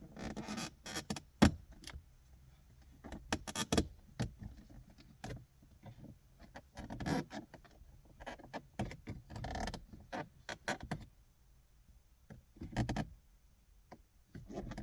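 Plastic radio trim panel on a 2016 Cadillac CTS dashboard being pried up by hand, with irregular sharp clicks and short rattling scrapes as the panel and its clips shift.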